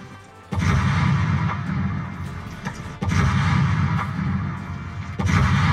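Recorded dynamite blasts played through a mine exhibit's loudspeakers: three sudden booms about two and a half seconds apart, each rumbling away slowly.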